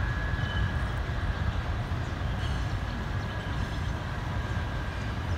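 Distant diesel locomotive hauling a cane train, a steady low rumble, with a faint steady high tone running through it.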